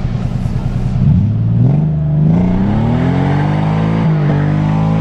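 Nissan 300ZX's V6 engine revving up hard about a second in and then held at high revs, with a brief dip about four seconds in, as the car spins a donut. The exhaust is in poor shape, patched with a clamp.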